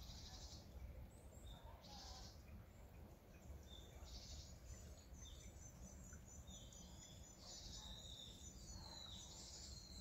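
Small forest birds calling and singing faintly: a few short harsh calls in the first half, then a run of quick high chirps and several falling whistled notes in the second half. Under them is a low, even background of a trickling mountain stream.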